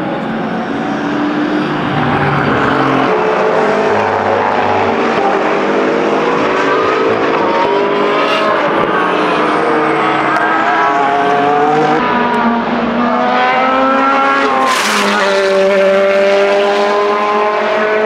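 Endurance race cars, hybrid prototypes and GT cars, running hard past trackside. Engine notes climb with acceleration and drop at each gear change, with several cars overlapping. A sharp burst comes about 15 seconds in.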